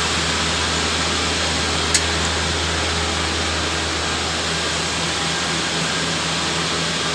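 Steady machine noise: a low hum under an even hiss, with one sharp click about two seconds in.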